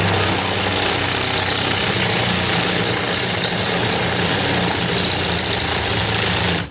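Electric drill running steadily with a 27/64-inch bit, drilling out a bolt hole in a metal tool box to take a rivet nut, with a steady high whine over the motor hum; it stops abruptly near the end.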